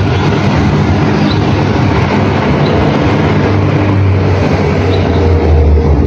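A loud, steady, low mechanical rumble from a running motor, with a few faint, short, high bird chirps over it.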